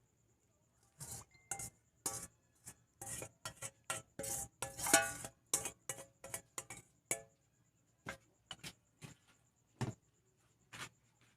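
Kitchen utensils and dishes clinking and scraping: an irregular run of short clinks and clatters, busiest in the first half and thinning to a few scattered knocks near the end.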